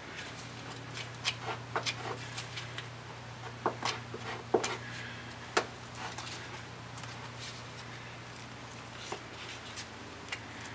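Putty knife scraping and tapping as thickened epoxy is spread onto the wooden scarf surfaces of a hull plank opening: a scatter of short, light clicks and scrapes, most of them in the first half, over a steady low hum.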